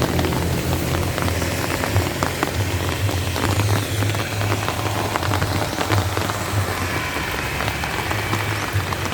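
Steady rain falling, with a dense patter of separate drops over a low, uneven rumble.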